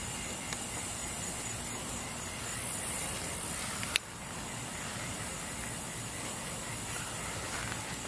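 Steady outdoor hiss, with one sharp click just before the middle.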